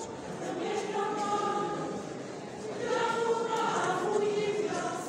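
Mixed Catholic church choir of men's and women's voices singing a hymn together under a conductor. The singing eases slightly about two seconds in, then swells louder about three seconds in.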